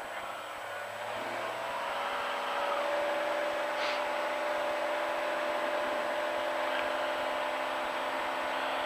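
Single-engine piston airplane's engine and propeller coming up to full takeoff power. A steady drone rises in pitch and loudness over the first two to three seconds, then holds steady through the takeoff roll.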